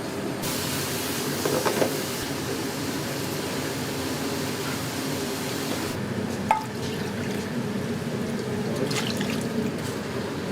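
Water running hard from a kitchen tap, turned on about half a second in and off about six seconds in, followed by one sharp clack. A steady low hum runs underneath.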